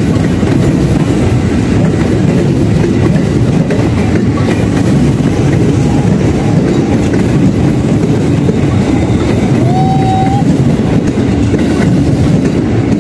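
A 205-series electric multiple-unit commuter train passing close by, a loud steady rumble of its wheels running over the rails.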